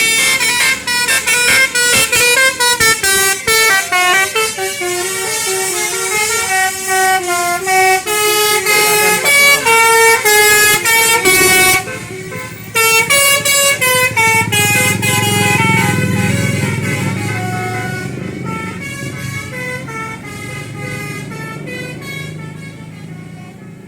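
Bus telolet basuri horn playing a quick melody of stepped musical notes. About halfway through the tune thins out and a passing bus engine rumbles underneath, the whole sound fading away near the end.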